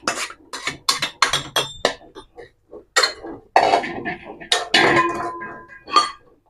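Steel kitchenware clattering as ground flour is scraped and tapped off a steel plate into a steel tin: a quick run of sharp taps in the first two seconds, then a few louder clinks with a short metallic ring about three to five seconds in as the tin is handled.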